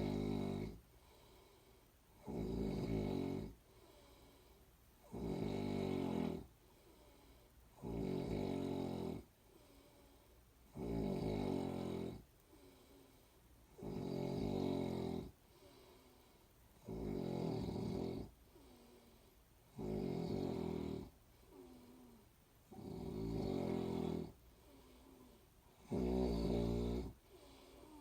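A person snoring in a slow, even rhythm: a snore about a second long roughly every three seconds, ten in all, with faint breathing between.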